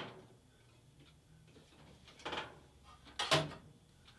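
Metal workshop parts being handled and set down: a sharp knock right at the start, then two softer knocks about two and three seconds in.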